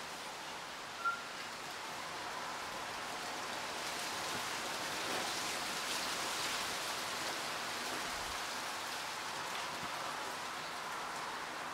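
Wind blowing through trees and bush foliage: a steady rustle of leaves that swells into a stronger gust around the middle and eases toward the end. A single brief high note sounds about a second in.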